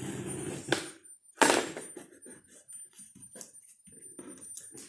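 Micron sandpaper wrapped on a wooden sanding stick being scored along the stick's edge and handled. A short, loud scratchy scrape comes about a second and a half in, then light ticks and paper-and-tape rustles.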